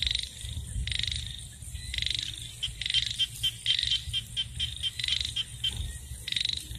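Frogs calling at night: short, high, pulsed calls repeating about once a second, with a faster run of rapid clicking pulses in the middle.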